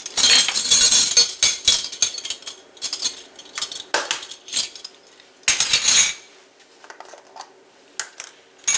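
A ring of metal measuring spoons jangling and clinking as it is handled, busiest in the first second and a half, with scattered clicks after and a short clatter a little past halfway.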